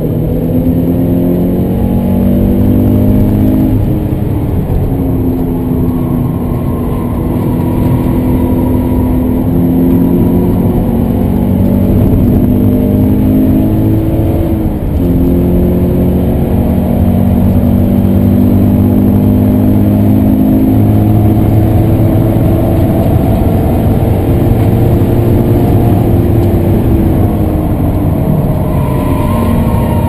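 Toyota 86's flat-four engine heard from inside the cabin under hard acceleration on a race track. The engine note climbs steadily through long pulls, dips about halfway through, climbs again, and drops near the end.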